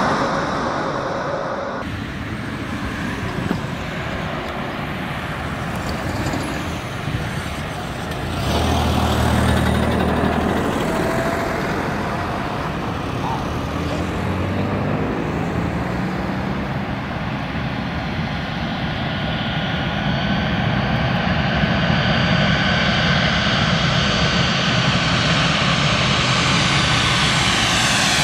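Boeing 737-800 jet engines on final approach: a steady rumble with a high whine that grows louder over the last several seconds as the airliner comes close. Before that, a mixed outdoor background noise.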